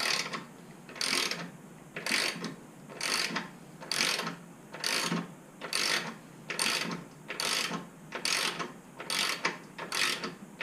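Hand ratchet wrench being worked back and forth on a bolt. A short burst of pawl clicks comes on each stroke, about one a second.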